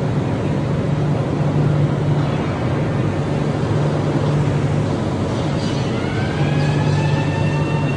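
Steady, loud industrial drone of a bell annealing furnace plant, with a strong low hum. About six seconds in, a rising whine joins: several tones climb together and then hold steady.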